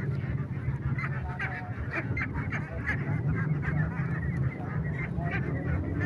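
A flock of young laying ducks quacking, many short calls overlapping in a continuous chatter.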